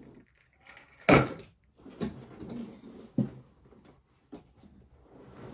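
Plastic action figures and toy-ring pieces being handled and set down. There is one sharp knock about a second in, the loudest, then several lighter knocks.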